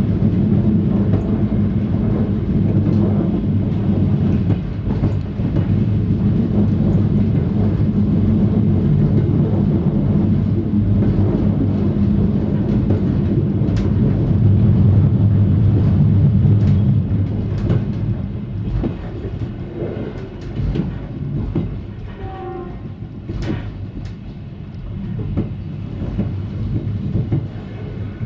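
Train running along snowy track, heard from the driver's cab: a steady low hum and rumble with scattered clicks from the rails. The noise drops noticeably about 17 seconds in, and a brief higher tone sounds around 22 seconds.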